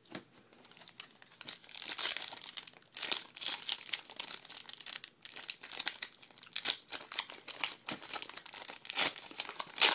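Wrapper of a 2012 Panini Prestige football card pack being crinkled and torn open by hand, an irregular run of crackles.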